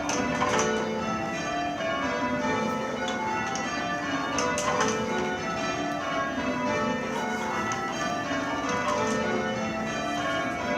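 A ring of church bells, rung full-circle by ringers on ropes, ringing rounds: each bell strikes in turn from the highest to the lowest, over and over at an even pace, with the tones overlapping.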